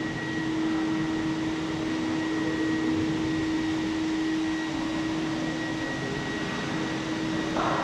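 Steady hum and hiss of room ambience inside a large vaulted stone church, with one constant low tone under it.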